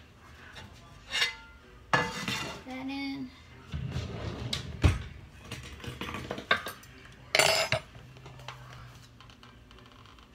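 Kitchen utensils and metal cookware clattering as they are handled and moved about: an irregular string of sharp clinks and knocks.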